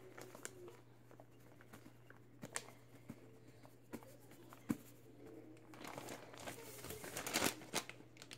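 Plastic bag of powdered sugar crinkling as it is handled and tipped, with scattered small ticks and a denser stretch of crinkling from about six to seven and a half seconds in.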